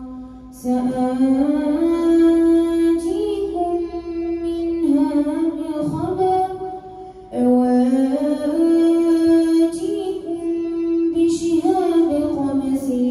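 A boy reciting the Quran aloud in a melodic, drawn-out chant into a microphone, amplified over the hall's loudspeaker, with long held notes. Two long phrases with a short pause for breath around seven seconds in.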